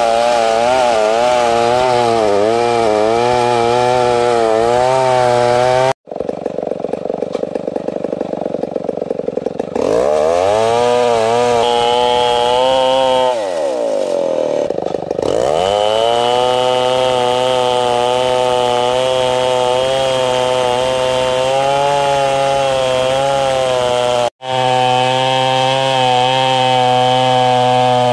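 Stihl 070 two-stroke chainsaw running under load, ripping a log of ulin ironwood lengthwise into planks. Its engine note falls back and climbs again a couple of times, and the sound breaks off abruptly twice.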